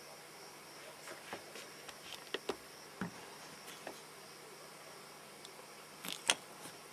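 Faint night ambience: a steady high-pitched chirring of insects, typical of crickets, with scattered small clicks and taps. The loudest are a pair about six seconds in.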